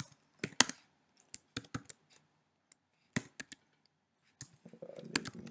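Computer keyboard being typed on: a handful of sharp, separate keystroke clicks at irregular intervals.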